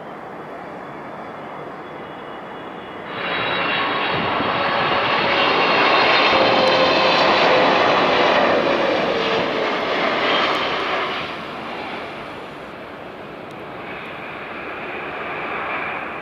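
Delta Boeing 777-200LR's GE90 turbofans on final approach, passing close by with gear down. The jet noise and high engine whine come in suddenly about three seconds in, are loudest around the middle, and fade after about eleven seconds. A smaller swell of engine noise follows near the end as the airliner reaches the runway.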